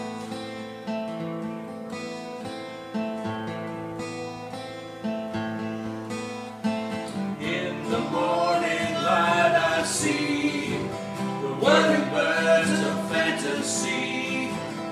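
Two acoustic guitars played together, chords ringing and changing every second or two. A man's singing voice comes in about halfway through over the guitars.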